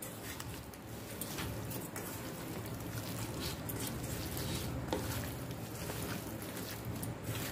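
Hands squishing and kneading raw chicken pieces through a wet spice marinade in a stainless steel bowl: a soft, irregular squelching with faint scrapes against the bowl, over a steady low hum.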